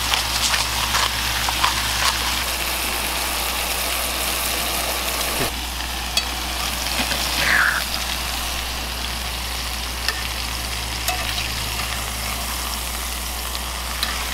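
Pacific cod fillets sizzling steadily in olive oil in a cast-iron skillet, with scattered clicks of metal tongs against the pan as the fillets are turned.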